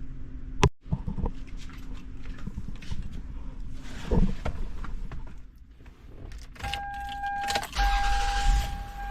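Keys jangling and a few knocks, then a steady warning tone from the car. Near the end the Toyota 1MZ-FE V6 is cranked and starts, settling into a low idle on its first start after an oil change.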